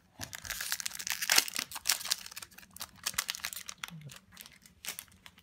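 Foil Pokémon booster pack wrapper crinkling as it is torn open by hand: a dense crackle, loudest about a second in, thinning to scattered crinkles after about three and a half seconds.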